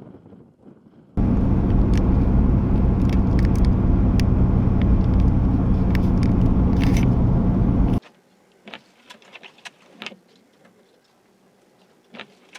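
Loud, steady vehicle rumble that starts suddenly about a second in and cuts off abruptly after about seven seconds, followed by a faint stretch with a few light clicks.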